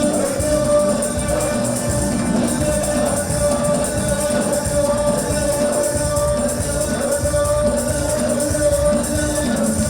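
Moroccan wedding music: dense hand percussion with tambourine jingles at a quick beat, a sustained melody line and voices singing.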